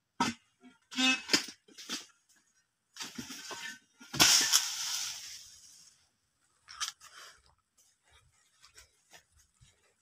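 A pole sickle cutting at an oil palm, with sharp scraping and cutting strokes. About four seconds in comes a loud crash as cut growth falls from the palm to the ground, its rustle dying away over a couple of seconds.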